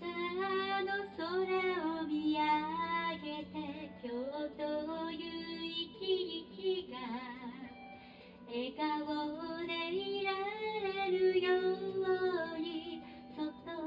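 A solo female voice singing a melody over instrumental backing music, with a short break in the voice about eight seconds in.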